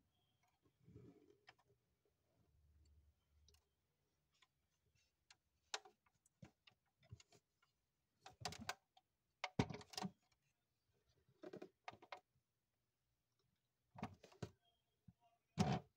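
Doors of a 1:18 scale model Range Rover being swung open and shut by hand: a scattered run of small clicks and clacks at the hinges and door edges, irregularly spaced, with the loudest clack near the end.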